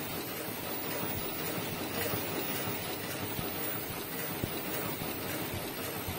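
Automatic mask-making machinery running, among it an earloop welding machine: a steady, dense mechanical noise full of small rapid clicks, with one sharper knock about four and a half seconds in.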